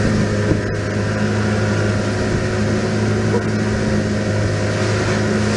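Mercury outboard motor running flat out, a steady drone under the rush of churning wake water and wind.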